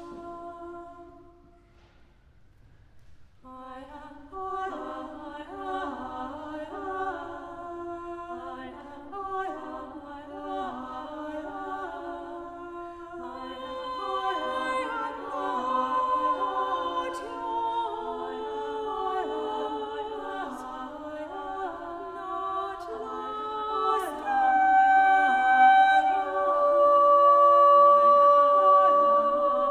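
Mixed chamber choir singing unaccompanied. A held chord dies away in the first second, there is a short pause, and the voices come back in about three and a half seconds in, growing louder, with long held high notes near the end.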